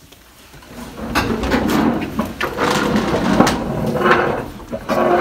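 Chairs scraping and knocking against the floor and tables, with bags and shuffling feet, as a classful of students gets up from their seats. It is a continuous clatter of knocks and scrapes starting about a second in.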